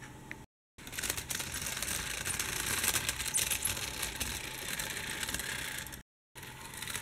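Siku die-cast model train rolling along metal model railway track: a dense, fast clicking rattle of small wheels on the rails and joints. The sound cuts out completely for a moment about half a second in and again about a second before the end.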